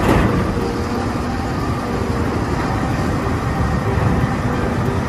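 A vehicle engine sound, a steady low rumble with hiss, which cuts off suddenly at the end.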